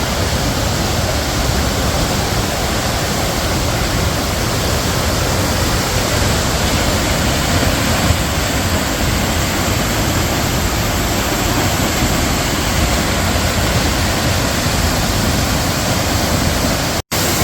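Waterfall's falling water, a loud steady rush with no change in it, broken by a split-second gap near the end.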